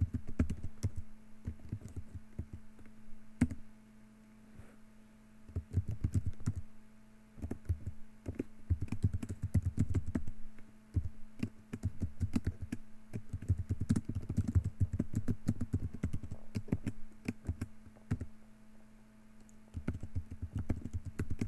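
Typing on a computer keyboard, key clicks coming in bursts with short pauses between them, over a low steady hum.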